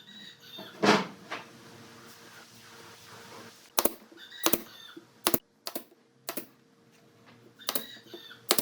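A series of irregular sharp knocks and clicks, hard objects tapping or striking, about eight spread unevenly over several seconds, some with a brief ringing note.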